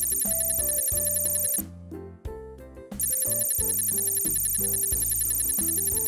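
Rapid, high electronic ringing like a telephone bell, over children's background music with a bass line. The ringing stops about a second and a half in and starts again about three seconds in.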